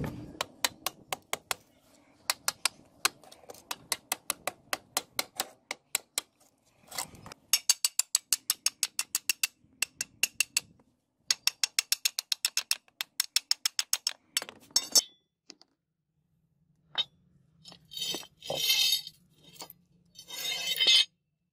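Claw hammer striking a steel chisel driven into an old wooden sword handle to split it off: a long run of sharp metallic taps, about three a second at first, then quicker runs of about six a second. Near the end come a few rough scraping, rattling sounds.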